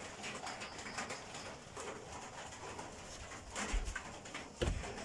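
A dove cooing faintly in the background, with two low thumps in the last second and a half.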